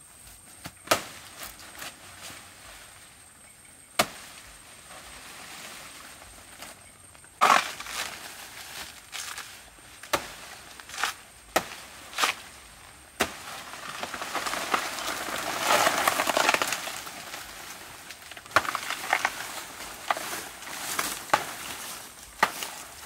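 Sharp chops of a blade into a banana plant's soft trunk, single strokes a few seconds apart. About halfway through there is a long rustling crash of big leaves as the plant topples, then a quicker run of chops among the leaves.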